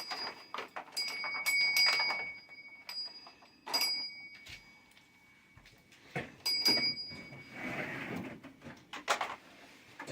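Toy pieces knocking and clattering, with three short bell-like rings, each starting on a knock about a second in, near four seconds and about six and a half seconds in.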